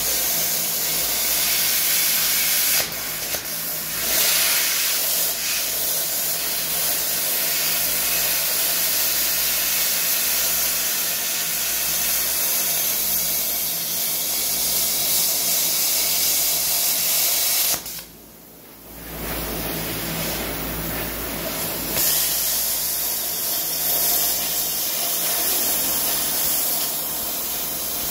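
Eastwood Versa Cut 60 plasma cutter cutting through a rusty steel truck frame, giving a steady hiss of arc and air. It cuts out for about a second past the middle, then starts again.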